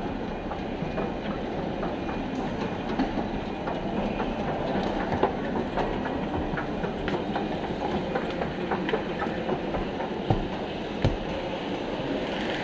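Metro station escalator running with a steady clattering rumble and scattered sharp clicks and knocks.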